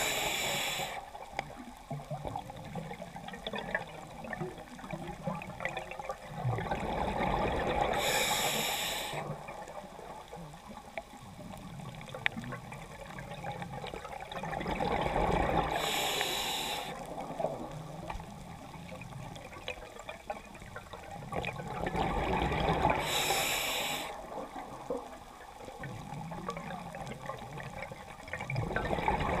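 A scuba diver breathing through a regulator underwater, in slow cycles about seven seconds apart: a swell of bubbling exhalation, then a short sharp hiss as the next breath is drawn.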